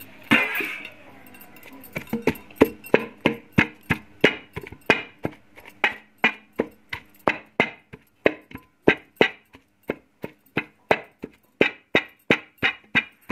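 Cooked beef mince and chana dal being pounded by hand in an aluminium pressure cooker, with a brief scrape at the start and then steady rhythmic strikes against the metal pot, about three a second.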